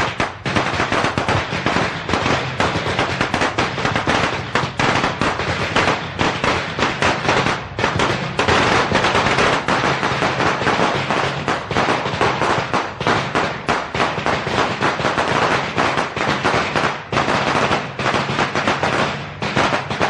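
A long string of Chinese firecrackers going off in a continuous rapid crackle of sharp bangs, many each second, with no pause.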